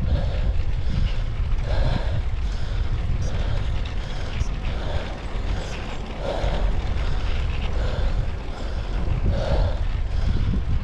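Wind buffeting the action camera's microphone on a moving bicycle, a steady low rumble. A softer sound recurs about every second and a half.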